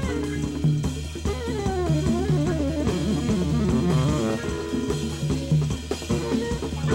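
Electric jazz-rock band playing live: a tenor saxophone solos in winding, sliding runs over a repeating electric bass line, drum kit and conga percussion.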